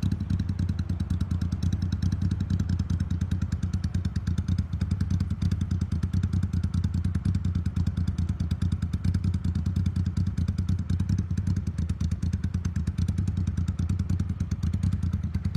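Motorcycle engine idling steadily on an aftermarket Mikuni TM40 flat-slide carburettor, with an even, rapid exhaust pulse.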